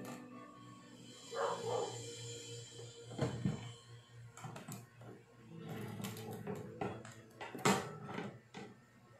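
Wire bingo cage being handled: sharp knocks and clicks of the cage and its balls, several times, with a cluster near the middle and the loudest knock near the end. Two short pitched calls come about a second and a half in.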